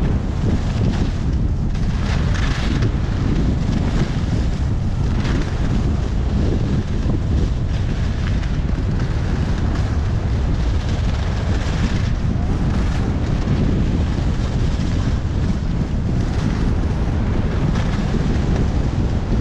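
Heavy wind rumble on the microphone of a camera carried by a downhill skier, with skis hissing over packed snow in swells every few seconds as they turn.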